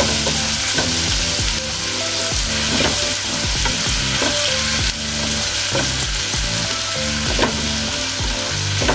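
Sautéed pork, onion, garlic, tomato and shrimp paste sizzling in hot oil in a coated frying pan, stirred with a silicone spatula that scrapes and knocks against the pan every second or so.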